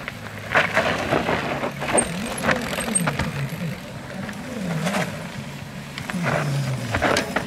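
Mountain bikes passing on a rough dirt forest trail: repeated sharp clatters and knocks from tyres and bikes going over roots and rocks, over a low wavering drone.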